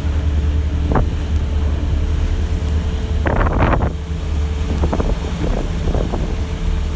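A boat's engine running with a steady low drone, with wind buffeting the microphone. There is a brief louder burst of other sound about three seconds in.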